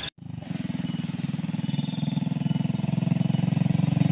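Motorcycle engine running with a steady, even beat, growing gradually louder as it approaches.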